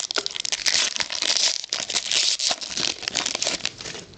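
Foil trading-card pack wrappers crinkling and tearing, with the cards clicking and sliding as they are handled.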